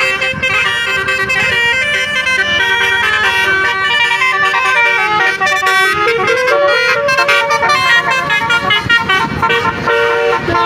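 Indonesian bus 'telolet' musical air horn playing a fast tune, several horn notes sounding together and stepping from pitch to pitch without pause, over the low rumble of the bus.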